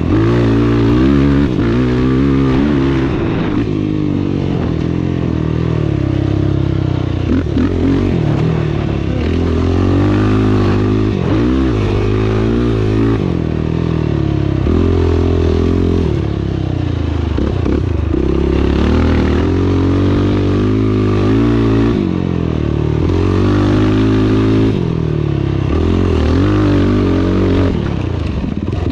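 Dirt bike engine ridden hard on an off-road race course, its pitch rising and falling over and over as the throttle is opened and shut and the gears change, with the odd knock and rattle.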